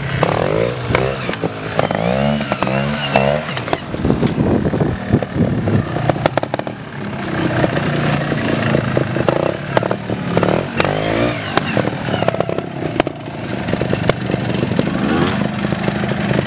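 Trials motorcycle engine revved in short bursts, its pitch rising and falling repeatedly, as the bike picks its way over dirt mounds, with scattered sharp clicks between the revs.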